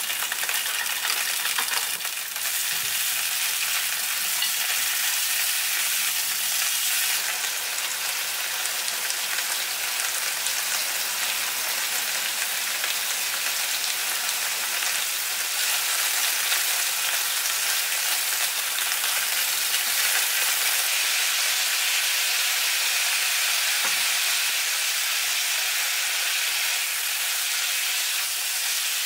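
Green beans sizzling as they stir-fry in oil in a hot nonstick wok, a steady high hiss that starts as the beans go into the pan, with a spatula stirring them through.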